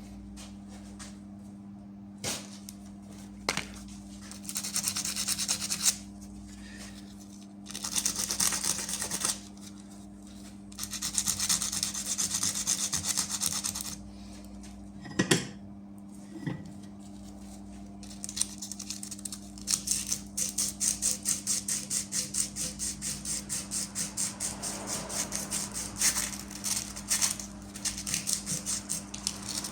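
Rasping rubbing strokes in short bouts, a sharp knock in the middle, then a steady back-and-forth rubbing rhythm of about two to three strokes a second, over a constant low hum.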